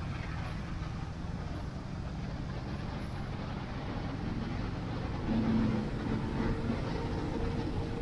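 Steady low rumble of a moving vehicle, with a brief pitched tone about five seconds in.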